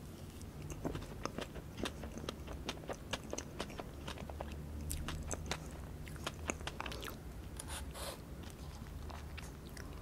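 Close-miked chewing of a mouthful of Hershey's Sundae Pie, a creamy chocolate filling on a biscuit-like crust, with many small sharp clicks of the mouth and teeth.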